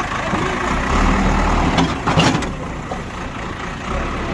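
Heavy diesel engine of a bulldozer running steadily, with a short burst of scraping or clattering noise about two seconds in.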